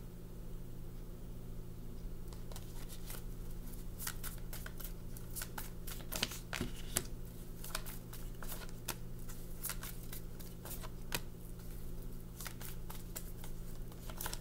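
Tarot cards being shuffled by hand, with irregular quick flicks and snaps of the cards starting a couple of seconds in, over a steady low hum.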